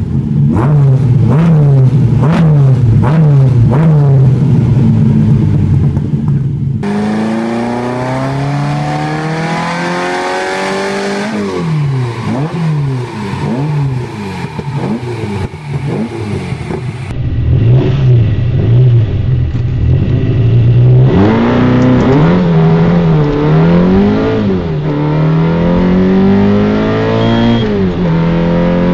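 TVR Cerbera's naturally aspirated flat-plane V8, first blipped in short revs while standing still. About seven seconds in it is revved up and down on a rolling road, and from about seventeen seconds it is heard from the cabin, accelerating with breaks for gear changes.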